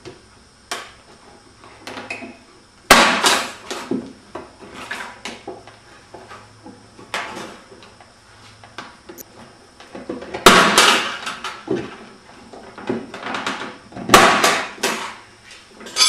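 A wooden shipping crate being pried and knocked open with a metal hand tool. There are irregular sharp knocks and cracking of wood and metal, with the loudest strikes about three, ten and fourteen seconds in.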